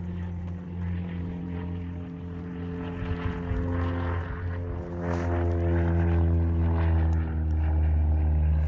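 Propeller engine of a small single-engine plane droning overhead, growing louder about halfway through.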